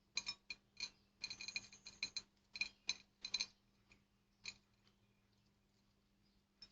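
Rooster gizzard being peeled by hand, its tough brown inner lining pulled away in a string of short crackling scrapes and ticks over the first four and a half seconds, then near silence.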